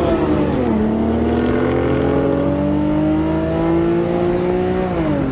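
Car engine under way: the revs drop in the first second, then climb steadily for about four seconds as it pulls through a gear, and fall again near the end.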